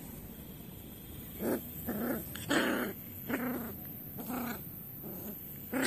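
Pomeranian puppy giving a series of about seven short, whiny cries, starting about a second and a half in.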